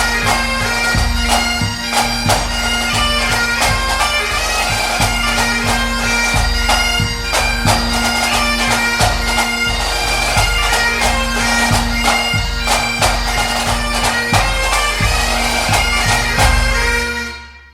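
Bagpipe music: a steady drone under a quick chanter melody, fading out in the last second or so.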